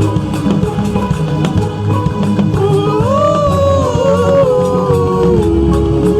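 Loud worship music with a steady beat and a singing voice or lead instrument holding and sliding between long notes partway through.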